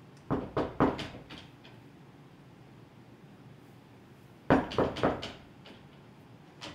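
Knocking on a wooden door: a quick set of three or four knocks, then another set about four seconds later.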